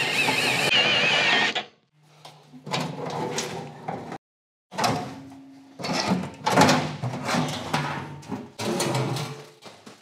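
A cordless drill-driver runs for about a second and a half, with a wavering whine, backing out screws on a furnace blower assembly. Then the sheet-metal blower housing scrapes, slides and knocks as it is worked out of the furnace cabinet.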